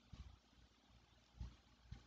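Near silence: room tone, with a couple of faint low thuds.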